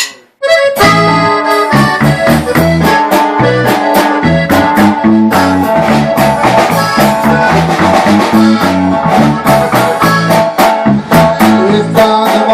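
Norteño band playing an instrumental intro: an accordion melody over strummed guitar-type strings and a bass line, starting about half a second in, with no singing.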